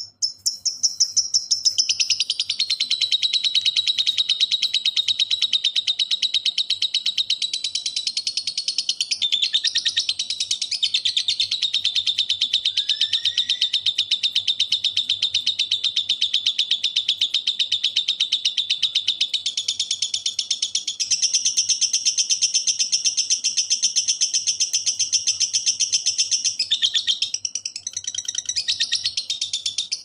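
Lovebird singing a long 'ngekek': one unbroken chattering trill of very rapid, tightly packed high notes, the fast and dense delivery bird keepers prize. It falters briefly a few times, about a third of the way in and near the end.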